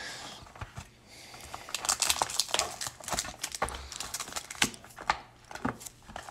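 Hands handling a cardboard Bowman High Tek hobby box and lifting out its foil-wrapped pack: irregular rustles, crinkles and light taps of cardboard and foil.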